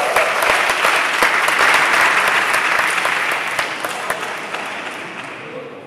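Spectators applauding as a badminton rally ends. The clapping swells at once, holds for about three seconds, then dies away gradually.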